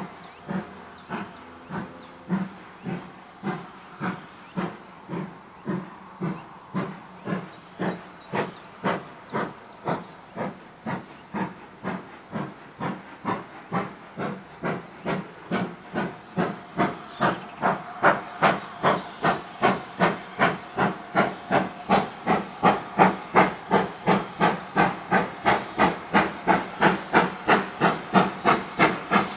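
Steam locomotive working hard on the approach, its exhaust beats coming evenly at about two to three a second and growing steadily louder in the second half.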